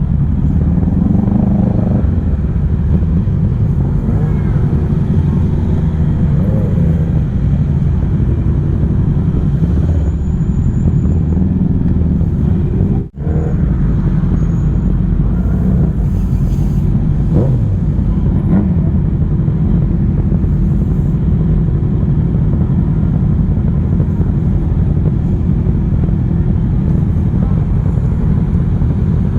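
Motorcycle riding at speed: steady engine rumble mixed with wind noise on the rider's microphone, with a momentary break near the middle.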